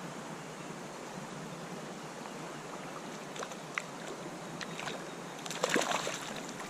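Steady rush of a flowing creek, with a few sharp splashes and clicks in the last couple of seconds.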